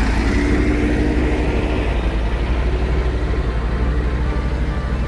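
JCB backhoe loader's Kirloskar diesel engine running steadily with an even, low throb.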